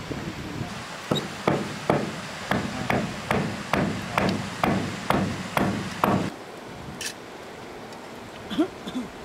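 A hand tool striking wood: about a dozen steady blows, a little over two a second, each with a short ring, stopping about six seconds in. A brief squeak follows near the end.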